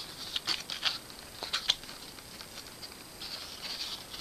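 Small cardboard box and packaging being handled: scattered light clicks and taps in the first two seconds, then a soft rustle near the end.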